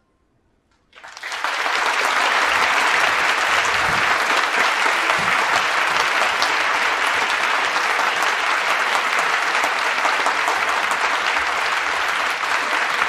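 Audience applauding: after about a second of near silence the clapping starts and continues steadily.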